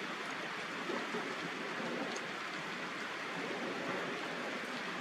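Steady rain falling: an even hiss of water with a few faint drop ticks.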